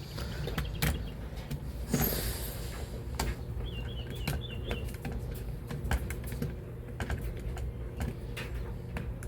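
Irregular small clicks and taps of airsoft rifle parts being handled and fitted together during disassembly, over a steady low hum. A brief scraping rush comes about two seconds in, and a short wavering high chirp near four seconds.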